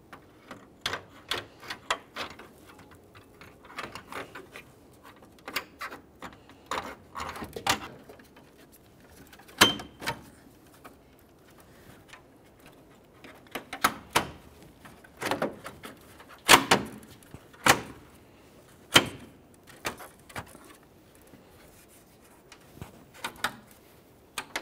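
New plastic front grille on a 2007 Chevrolet Trailblazer being pressed into place by hand: a string of irregular clicks, snaps and knocks as its mounting clips push into their holes and the plastic shifts. A few of the snaps are sharper and louder than the rest.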